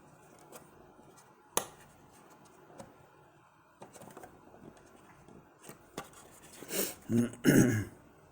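Hands handling a small plastic toy excavator and its packaging: scattered light clicks and a sharper click about one and a half seconds in, then louder scraping and rustling near the end as the taped-on piece is worked loose.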